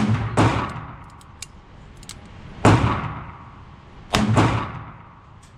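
Three double-action shots from a Smith & Wesson Model 19 Carry Comp .357 Magnum revolver, about a second and a half to two seconds apart. Each sharp crack rings out in a long echo off the indoor range.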